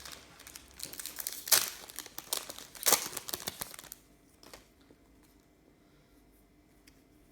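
Plastic wrapper of a trading-card pack crinkling as it is handled and opened, in a quick run of sharp rustles that stops about four seconds in.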